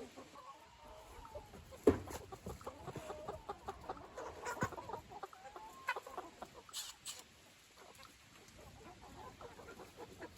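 Chickens clucking, with a sharp knock about two seconds in and a few lighter clicks later.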